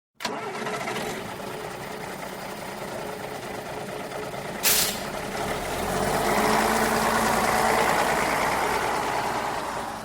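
Bus engine running, with a short, loud burst of air hiss about halfway through. The engine then grows louder and fuller as the bus moves off, easing off again near the end.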